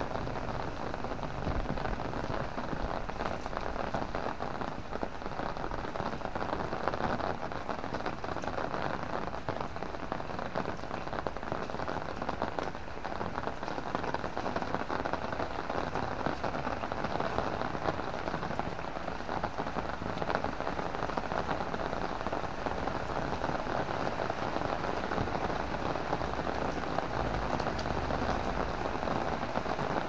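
Heavy rain falling steadily, a dense patter of drops drumming on an umbrella overhead, with an occasional low rumble near the start and end.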